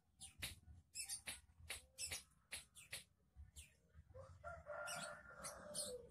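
Faint rapid chirping from small birds, with a rooster crowing for about two seconds near the end.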